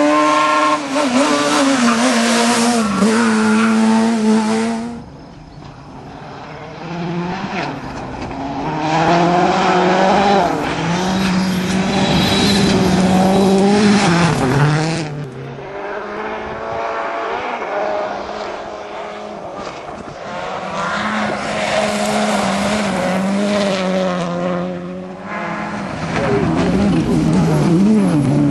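Rally car engines revving hard, their pitch climbing and dropping with the throttle and gear changes as the cars pass at speed. The sound switches abruptly from one car to another every five to ten seconds.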